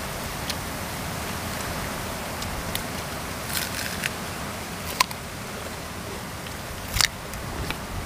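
People eating: a few short, sharp mouth smacks and clicks while chewing raw-fish laab and fresh vegetables, over a steady background hiss. The loudest clicks come about five seconds in and about seven seconds in.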